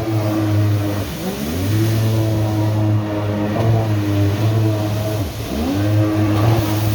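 Jet ski engine revving hard, its pitch dropping and climbing back twice as the throttle is eased and opened again.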